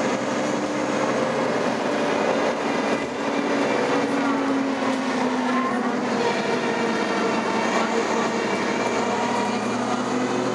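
Cabin sound of a 2011 Nova Bus LFS under way: a steady drivetrain hum and whine over road noise, with tones that shift a little in pitch.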